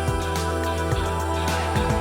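Background music with a steady beat, a bass line and sustained melodic tones.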